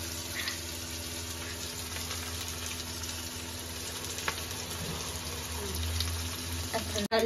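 Chopped onions frying in mustard oil in an aluminium kadhai, a steady sizzle with a few faint crackles.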